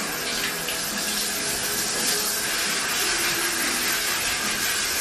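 Water running steadily from a tap or shower into a tiled bathtub.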